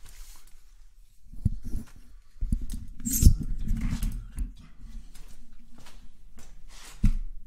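Handling noise from a hand-held phone camera and its mount being moved about: scattered rustles and knocks, the loudest a knock with a sharp hiss about three seconds in, and another knock near the end.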